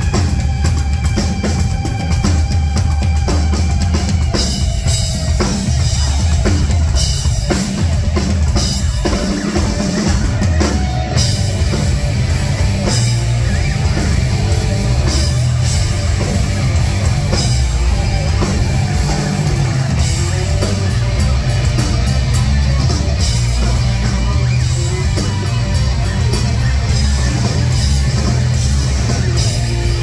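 Live rock band playing loud, with a drum kit and heavy bass throughout. A theremin's sliding tone sounds over the drums, clearest in the first several seconds.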